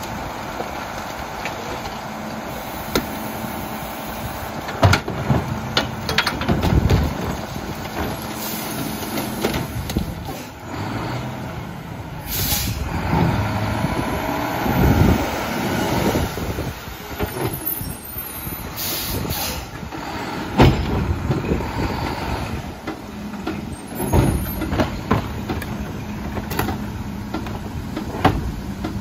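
Chagnon rear-loader garbage truck at work: diesel engine running under hydraulic load as the cart tipper and packer blade cycle, with sharp clanks and bangs of carts against the hopper and a hiss of air brakes.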